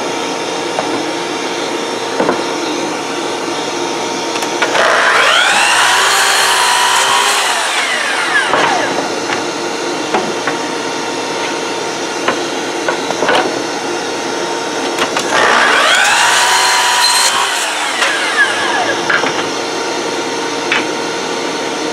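Miter saw cutting pine boards to length twice: each time the motor whines up to speed, cuts through the board and winds down. Underneath runs the steady hum of the dust extractor hooked to the saw, with a few knocks as the boards are handled.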